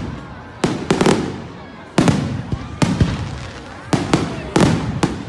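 Aerial fireworks shells bursting in succession: a sharp bang roughly every second, some in quick pairs, each trailing off in a fading echo.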